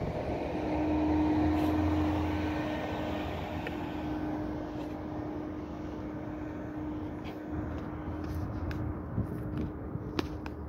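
Engine drone: a steady hum with one held tone, loudest in the first couple of seconds and then easing off, with a few light clicks near the end.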